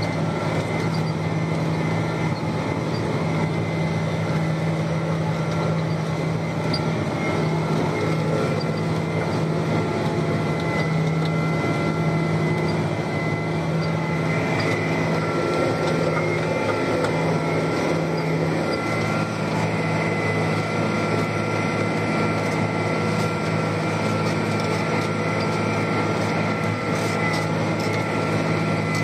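John Deere 8530 tractor's six-cylinder diesel engine running steadily under load while pulling a manure spreader, heard from inside the cab: an even drone with a thin steady whine above it.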